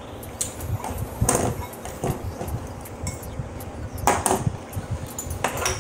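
Close-miked eating sounds: chewing and mouth smacking on stir-fried noodles, with sharper clicks and clinks of a metal fork against a glass bowl, the loudest about a second in and about four seconds in.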